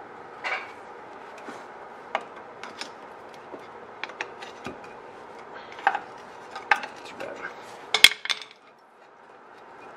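Scattered metallic clicks, scrapes and knocks of a stuck front brake caliper being pried and worked loose from the disc rotor with a hand tool, with one loudest clank about eight seconds in.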